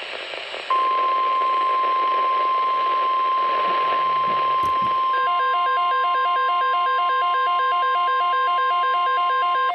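Weather radio sounding the NOAA Weather Radio warning alarm tone: one steady high tone, starting just under a second in over radio hiss, that signals an incoming severe weather alert. About halfway through it is joined by a fast repeating beep that alternates between pitches.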